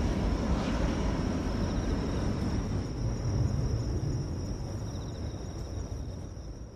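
Airliner cabin noise: a steady rumble of engines and airflow with a thin high whine above it, fading out over the last few seconds.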